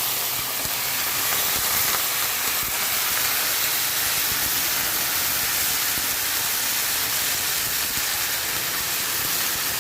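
Chicken pieces frying in hot soybean oil with deep-fried onions, a steady sizzle.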